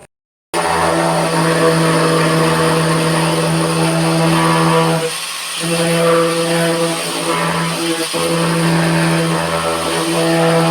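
A motor running with a steady hum. It eases off briefly about five seconds in and again near the end.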